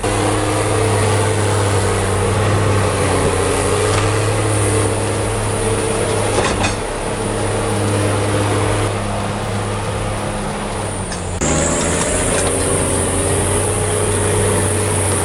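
Diesel engine of a John Deere 1110D forestry forwarder running steadily as the machine works through deep mud. About eleven seconds in, the engine note shifts abruptly and then wavers up and down.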